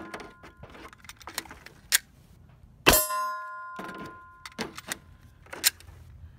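A Glock 21 .45 ACP pistol fires one loud shot about three seconds in, followed by the ringing of a struck steel target for about a second. Several fainter sharp cracks come before and after it.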